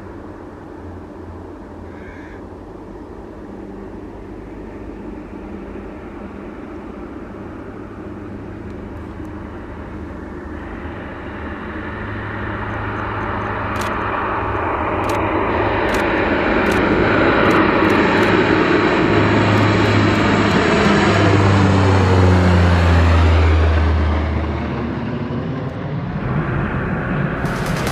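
Antonov An-26B's twin turboprop engines at takeoff power, growing steadily louder as the aircraft rolls, lifts off and passes close by. About twenty seconds in the pitch drops as it goes past, and the sound then fades as it climbs away.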